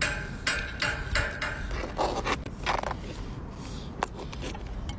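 Hard shells of cooked brown crabs scraping and knocking against each other and the pot as one crab is lifted out of the broth. The scrapes come in a quick run over the first three seconds, followed by a single sharp click about four seconds in.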